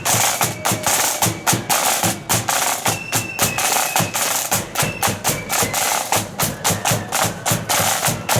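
Marching flute band playing: snare and bass drums beat a fast, even march rhythm, with the flutes' melody faint above the drums.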